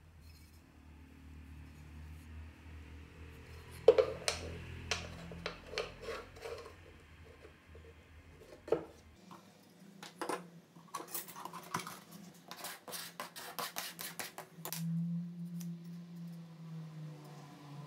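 Hands handling wooden strips and a steel ruler and try square on a workbench: a string of sharp knocks, taps and clinks, the loudest a single knock about four seconds in and a fast run of light clicks in the second half.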